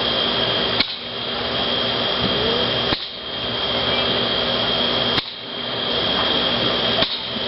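A ground firework fountain hissing steadily as it sprays, with a sharp crack about every two seconds.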